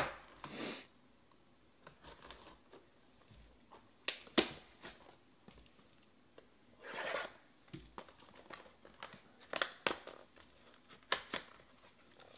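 Plastic shrink wrap being slit with a pocket knife and torn off a cardboard trading-card hobby box, then the box opened and a pack handled. Scattered short crinkles, tears and sharp clicks.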